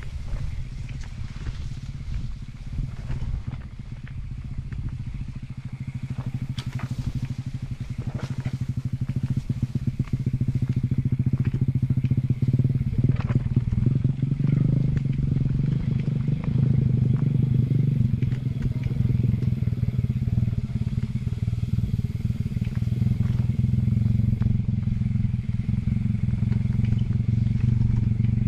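Wind rumbling on a helmet-mounted camera's microphone during a downhill mountain-bike descent, with frequent knocks and rattles from the bike jolting over the rough singletrack. The rumble grows louder over the first dozen seconds and then holds steady.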